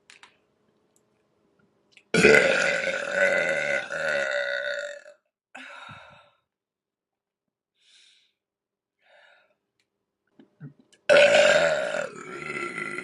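A woman burping loudly twice: one long burp about two seconds in lasting around three seconds, and a second long burp starting near the end.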